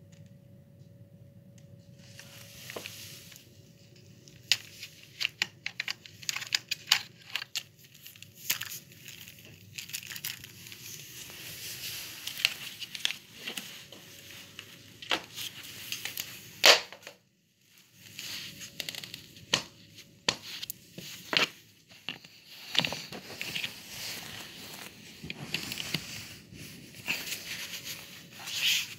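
Irregular clicks, knocks and crackling of plastic vacuum-cleaner parts being handled, with a faint steady hum in the background and a brief quiet gap about halfway through.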